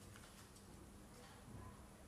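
Faint, light clicks of a 2x2 Rubik's cube being twisted, a few scattered clicks over near silence.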